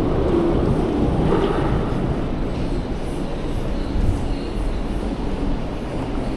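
Downtown street noise: a steady, fairly loud low rumble of passing traffic.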